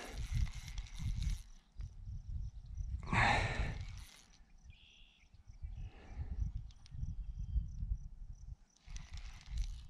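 Wind and handling rumble on a body-worn action camera's microphone, broken by two loud bursts of rushing noise near the start and about three seconds in. Insects trill faintly and steadily behind it.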